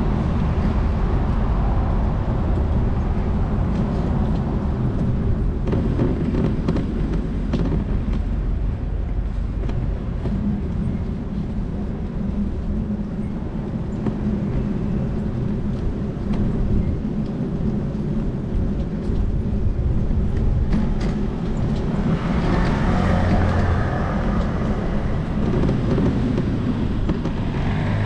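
Steady street traffic rumble, with scattered clicks and a louder passing vehicle for the last several seconds.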